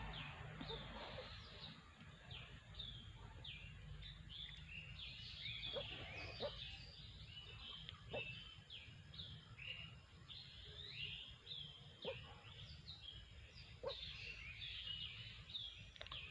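Many ducklings peeping together: a constant patter of short, high, downward-falling chirps overlapping one another, over a low steady rumble.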